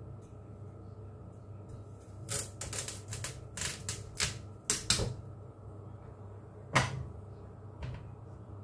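Chinese cleaver chopping a raw carrot on a cutting board: a quick, uneven run of sharp knocks from about two to five seconds in, then one louder chop a couple of seconds later.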